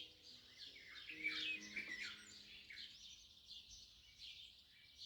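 Small birds chirping and twittering in quick, overlapping calls, thinning out about three seconds in.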